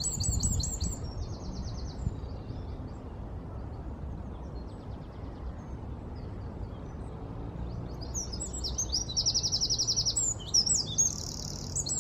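Eurasian wren singing its loud song, a fast run of high rattling trills and sharp notes. One song ends about a second and a half in, a faint short trill comes near the middle, and a full new song starts about eight seconds in.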